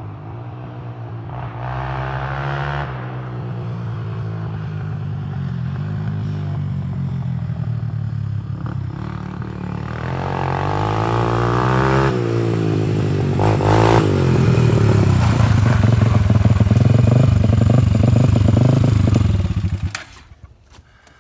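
Freshly rebuilt Honda 300EX ATV's single-cylinder four-stroke engine running on a test ride, revving up and easing off several times, loudest in the second half. The sound falls away abruptly near the end.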